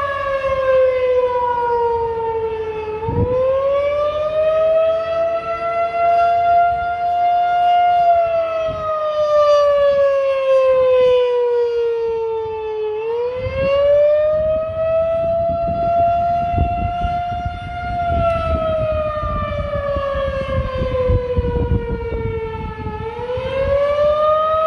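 Federal Signal 2001-SRN rotating outdoor warning siren sounding during a test: one loud, steady siren tone that slowly falls in pitch and then swings back up, repeating about every ten seconds.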